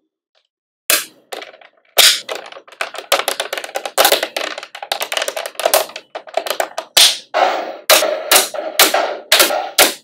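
Small magnetic balls clicking and snapping together as they are placed and pressed into a build. After about a second of silence comes a single click, then from about two seconds in, quick runs of sharp clicks and clatter.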